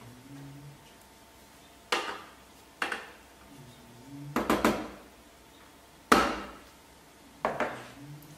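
Spatula scraping and knocking against a Thermomix's stainless steel mixing bowl while whipped egg white is pushed down the sides. It gives a string of sharp knocks with a short ring, several in quick succession about halfway through, the loudest about six seconds in.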